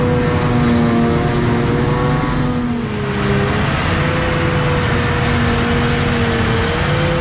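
Farm tractor's diesel engine running steadily under load, its pitch wavering slightly, with a short dip about three seconds in.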